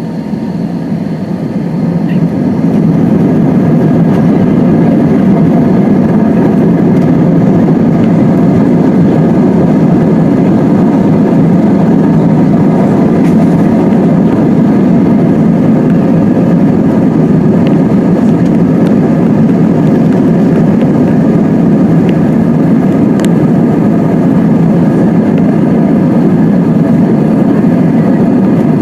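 Airbus A320's jet engines heard from inside the cabin, spooling up to takeoff thrust over the first few seconds and then running loud and steady with a deep, even rumble.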